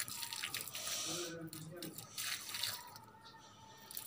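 Water splashing and dripping as it is poured from a hand-held plastic jug onto potted aloe vera plants, in uneven spurts.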